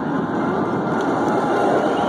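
Wind blowing in a steady, loud rush.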